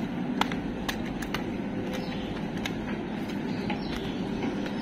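Footsteps climbing stone stairs: a handful of sharp, irregular taps over a steady low rumble of outdoor ambience and handling.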